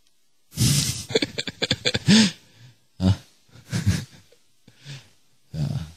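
A man's voice close on a microphone making breathy vocal sounds and unclear words in several short bursts, with a run of quick pulses near the start.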